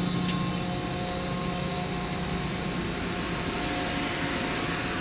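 Steady whirring rush of an FS E.402A electric locomotive's cooling blowers. A low hum underneath fades out about two seconds in, and there is a single short tick near the end.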